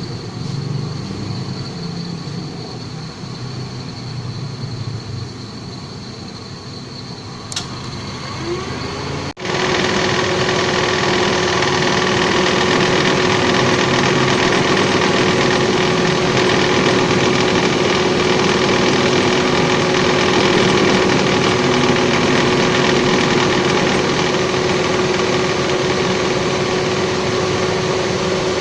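Car radiator cooling fan running with a growling ('ngorok') noise over an idling engine, a noise that calls for checking the fan and its motor. About nine seconds in the sound cuts and returns louder and steadier, with a steady hum.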